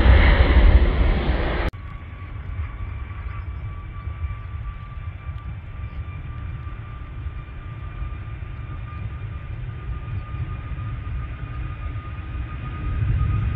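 Jet airliner takeoff noise. A KLM jet's engines are heard as a loud roar in its climb-out for under two seconds, then cut off suddenly. After that a Corendon Boeing 737 at takeoff power is heard from far off, a low rumble with a steady high whine, growing louder near the end as it accelerates down the wet runway.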